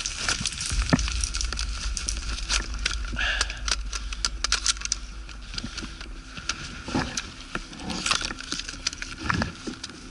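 Irregular crunching and crackling clicks, the sound of a person moving on foot through dry undergrowth close to a body-worn microphone.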